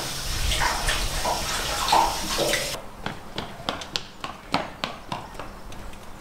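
Water rushing hard from a garden hose at an outdoor tap, cutting off suddenly about three seconds in. After it, a scatter of short, sharp clicks and taps.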